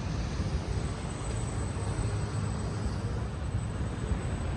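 Steady low rumble from a 55 m superyacht's engines and propellers as it reverses into its berth, churning white water at the stern. A thin high whine comes in about a second in and runs until near the end.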